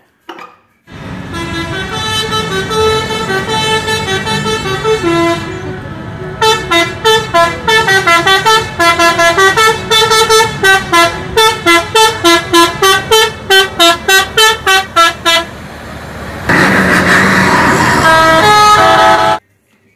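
Tour bus musical "telolet" air horns playing a tune: held chords of changing notes, then quick repeated notes about three a second, then a louder, harsher blast near the end.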